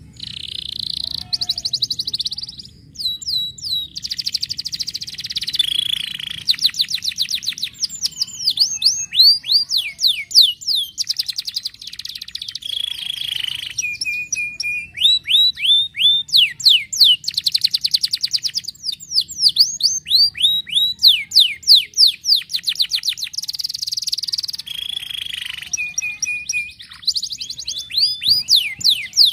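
Domestic canary singing a long, continuous song: phrase after phrase of rapid trills of quickly repeated notes, many sweeping steeply down in pitch, the phrase changing every second or two, with a couple of short steady whistled notes.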